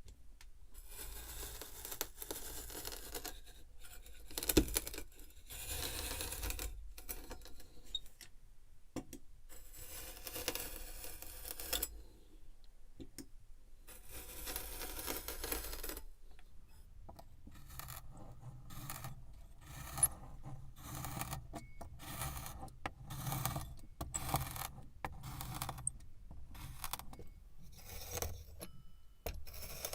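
Kinetic sand being worked by hand, with crunchy scraping and crumbling. Several long scraping squishes come first, then from about halfway a quicker run of short crunches, about one or two a second.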